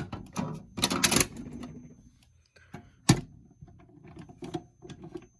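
Clicks and clatter of fire alarm pull stations being handled and snapped shut. The loudest cluster comes about a second in, and there is one sharp click about three seconds in.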